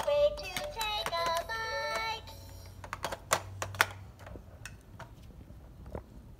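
VTech Pretty Party electronic tea-set toy playing a short synthetic tune that ends about two seconds in. A few sharp clicks of hard plastic toy cups knocking against the toy tray follow around three to four seconds in.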